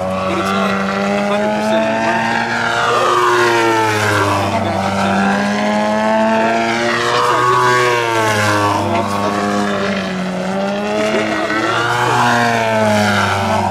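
Giant-scale 108-inch 3DHS Extra 330LT model aerobatic plane, its engine and propeller running hard through constant throttle changes, the pitch rising and falling repeatedly as it climbs, hangs and passes.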